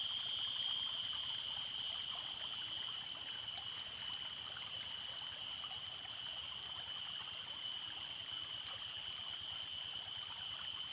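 Stream water running steadily, with a steady high-pitched drone in several tones over it.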